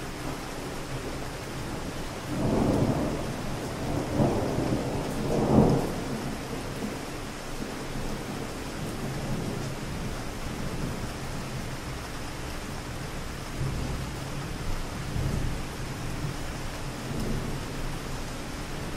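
Steady city rain falling, with distant thunder. The thunder rolls in a few surges from about two seconds in, peaking near six seconds, and fainter rumbles follow later.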